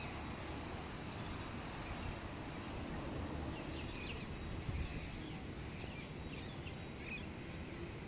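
Small birds chirping in short, quick calls, a cluster of them from about three seconds in, over a steady low outdoor rumble.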